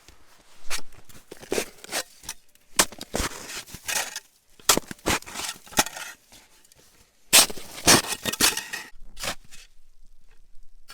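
Shovel digging into deep, packed snow: a run of irregular crunching, scraping strokes in bunches, dying away near the end.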